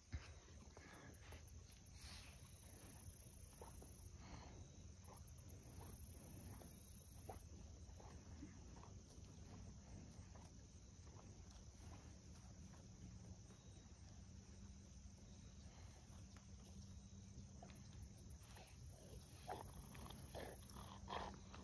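Near silence: faint outdoor ambience, a low steady rumble with scattered faint ticks.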